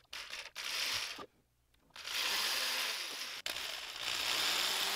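Small hand-held rotary tool running with a fine drill bit, drilling tiny holes into a small wooden lure: a steady high whirring hiss. It breaks off abruptly a few times, with a short dead silence about a second and a half in.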